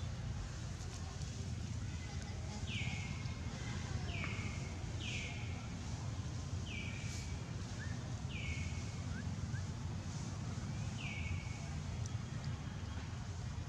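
Six short high calls, each sliding down in pitch, spaced about one to two seconds apart, over a steady low outdoor rumble.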